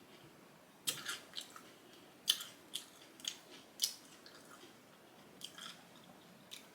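Close-miked crunching of a crisp mini cucumber being bitten and chewed: a run of sharp crunches for about three seconds, then a few more near the end.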